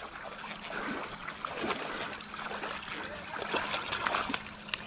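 Water splashing and trickling as a hooked smallmouth bass thrashes at the surface of a creek, an irregular patter of small splashes over the running water.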